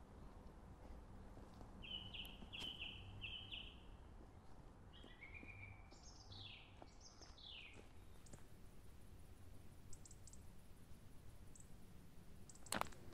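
Faint woodland birdsong: a songbird sings a run of quickly repeated notes, then a phrase of notes falling in pitch, over a quiet background hiss. A single sharp click comes near the end.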